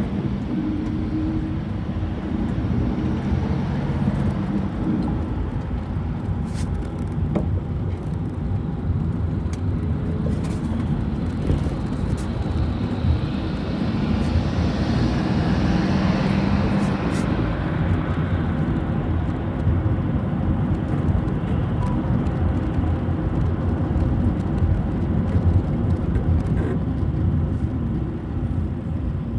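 City bus in motion, heard from inside: steady engine and road rumble, swelling for a few seconds about halfway through.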